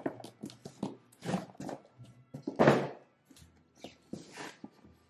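Rummaging through a cardboard box of wiring harnesses: irregular rustles and thunks of cardboard and parts being handled, loudest a little past halfway.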